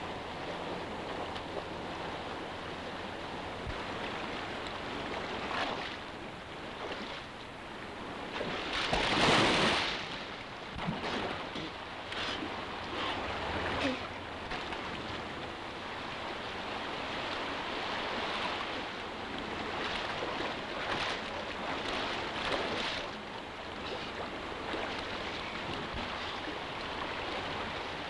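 Steady rush of a fast-flowing river, with one loud splash about nine seconds in as a wading man goes into the water, and a few smaller splashes after it.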